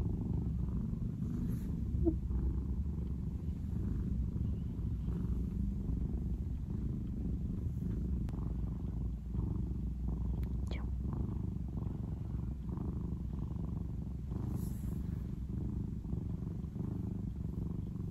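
Scottish Fold cat purring steadily, held close against the microphone.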